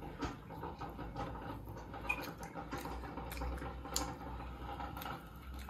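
Faint scattered clicks and scratches of children eating and handling food at a table, over a low steady hum; the sharpest click comes about four seconds in.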